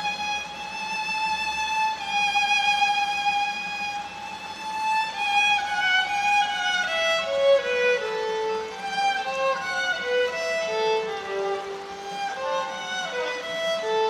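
Solo violin bowed inside a concrete culvert: long held notes with vibrato, then from about five seconds in a slow line of shorter notes stepping downward.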